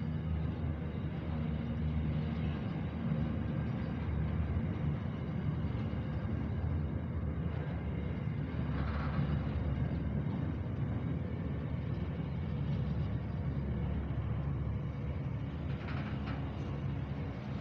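Freight train container wagons rolling slowly past: a steady low rumble of steel wheels on rail, with brief higher-pitched wheel noises about nine seconds in and again near the end.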